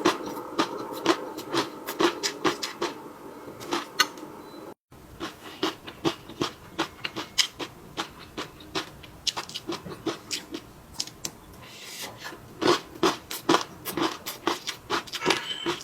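Close-miked chewing and wet mouth sounds of a person eating: quick irregular smacks and clicks, cut by a brief dropout about five seconds in.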